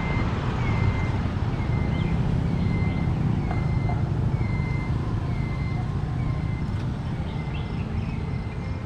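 Steady low rumble of street traffic, with a short high beep repeating about every two-thirds of a second.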